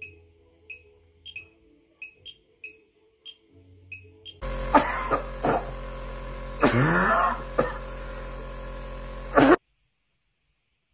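A fingertip pulse oximeter beeping in time with the pulse, in short high beeps about twice a second. Then a nebulizer compressor runs with a steady hum while a man coughs several times, and the hum cuts off abruptly.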